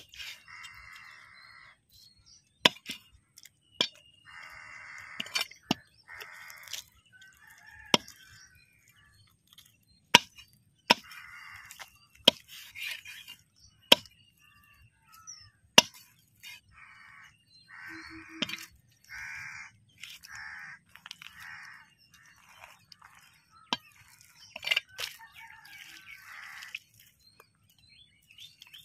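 Heavy curved chopper blade striking fish on a wooden log chopping block, a sharp chop every second or two as the fish is cut into pieces. Crows caw repeatedly between the chops, and small birds chirp faintly.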